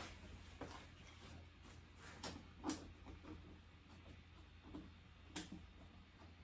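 Near silence over a low steady hum, broken by about five faint knocks and clicks of parts being handled, the clearest near the middle.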